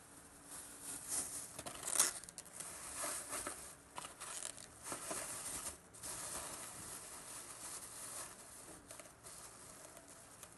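Thin clear plastic bag crinkling and rustling in irregular bursts as it is pulled over stacked styrofoam food containers and knotted at the top, with one sharper crackle about two seconds in.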